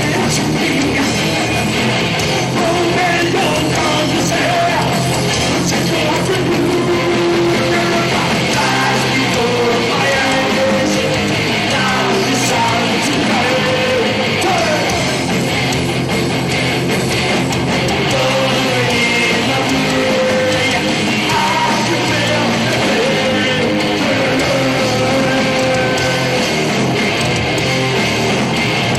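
Live heavy metal band playing at full volume, with distorted electric guitars over bass and drums.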